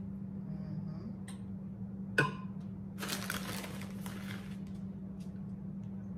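Plastic bag of shredded cheese rustling as the cheese is sprinkled by hand over spaghetti in glass baking dishes, with one sharp click about two seconds in. A steady low hum runs underneath.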